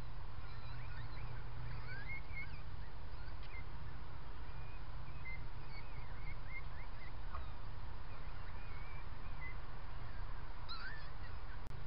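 Birds chirping in short, scattered calls over a steady low hum. The recording drops out briefly near the end.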